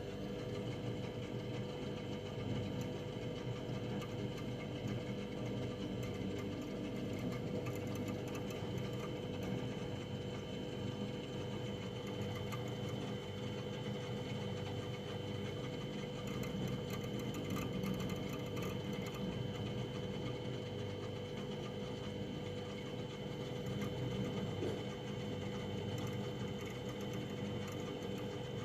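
Household freezer running: a steady hum with a thin, steady high whine over it, unchanging throughout.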